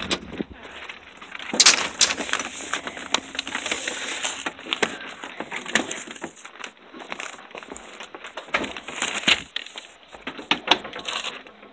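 Phone microphone rubbing and knocking against clothing as it is handled and carried: a run of scraping rustles broken by many sharp knocks.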